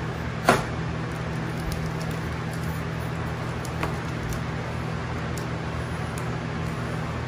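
A steady low hum, with a sharp click about half a second in and a softer one near the middle, plus faint ticks and scrapes as a knife trims cork wallcovering along a plastic trim guide.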